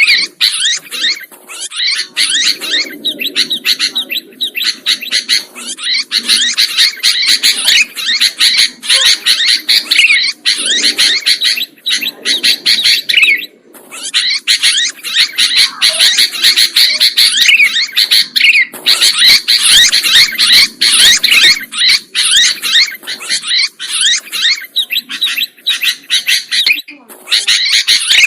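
Sooty-headed bulbuls (kutilang) chirping in a rapid, unbroken stream of quick calls, with only a short pause about halfway through.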